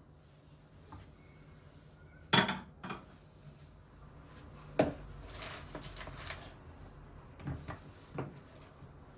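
Dishes and cutlery being handled and set down: a sharp clatter about two and a half seconds in, a clink near the middle followed by a short rustle, then two lighter knocks near the end.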